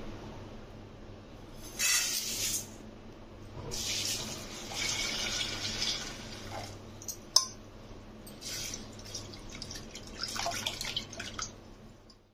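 Water poured into a steel bowl over flattened rice (poha) to rinse it, in several spells, with a short rattle about two seconds in and a sharp click in the middle.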